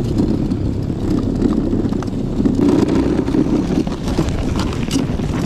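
Steady, loud rumbling ride noise from a homebuilt electric tracked snow bike moving through snow, mixed with wind on the microphone.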